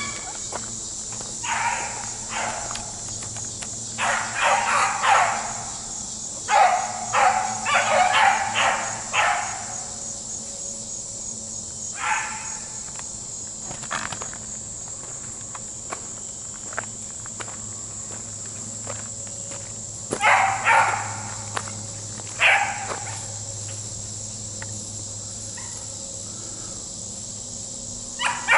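A pack of beagles baying in repeated bursts as they chase a rabbit by sight, with several cries close together early on and more scattered ones later. A steady high chirring of insects runs underneath.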